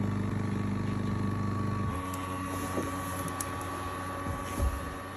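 ECOVACS DEEBOT X1 Omni base station running its pump to move dirty water from the robot into the station's dirty-water tank. A steady low hum drops away about two seconds in, leaving a quieter, higher steady whine, with a brief low knock near the end.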